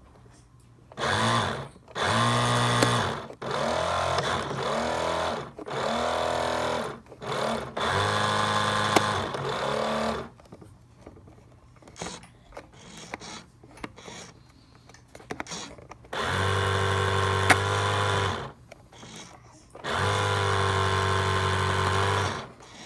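Nikko Super Cruiser RC boat's electric motor run in about seven bursts, each spinning up and winding down with a whine, with a long pause in the middle. The boat is working on a freshly charged 7.2-volt battery.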